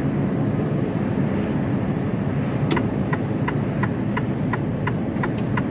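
Steady engine and road rumble inside the cab of a moving Mercedes Actros truck. About halfway in, the turn indicator starts clicking steadily at about three clicks a second as the truck signals right.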